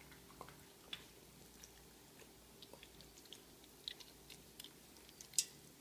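Jack Russell terrier chewing and biting at a whole cooked chicken in a steel pot: faint, scattered wet clicks and crunches, with one louder sharp click near the end.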